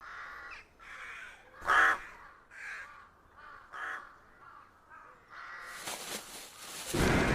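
A series of short, harsh cawing bird calls, about eight of them, the loudest about two seconds in. Near the end comes a loud, noisy burst.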